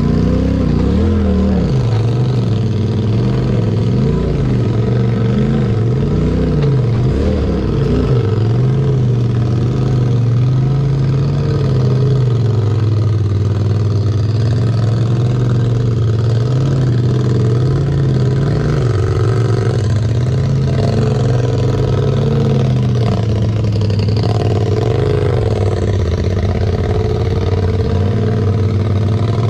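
Polaris RZR side-by-side engine running at low revs while crawling over rocks, its pitch rising and falling with the throttle in the first several seconds, then holding steadier.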